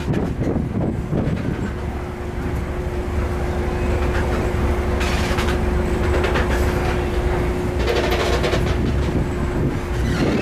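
Moored passenger ferry's diesel engine idling: a steady low rumble with a steady hum added about two seconds in, and some clattering over it around the middle and near the end.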